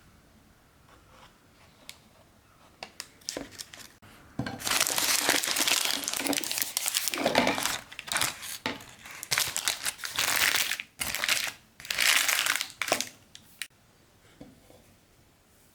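Parchment cooking sheet crinkling as it is handled and pressed into a container, in repeated spurts, with a few light clicks just before.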